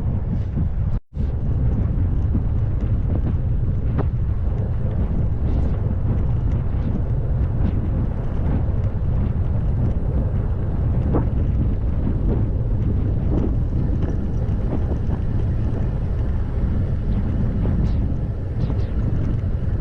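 Strong wind buffeting the microphone: a loud, steady low rumble, briefly cut off about a second in.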